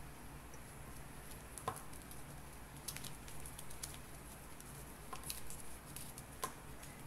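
A few faint, short clicks and taps of small objects being handled on a wooden tabletop, over a low steady hum.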